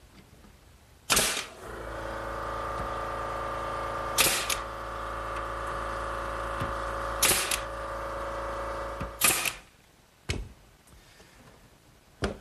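Nail gun firing four times, about every three seconds, each shot a sharp snap as it drives a nail into a wooden panel. A steady mechanical hum runs beneath, starting just after the first shot and stopping after the last; a couple of small knocks follow near the end.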